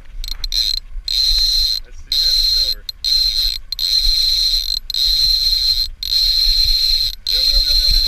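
Fishing reel being cranked, giving a steady high whirring whine that stops and starts several times in short pauses.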